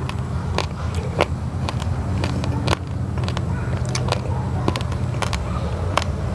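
Raw uncooked rice grains, basmati mixed with glutinous rice, cracking between the teeth while being chewed: sharp crunches at irregular intervals over a steady low rumble.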